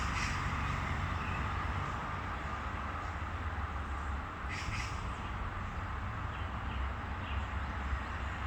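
Short bird calls, one right at the start and a pair about four and a half seconds in, over a steady low rumble of wind or distant traffic.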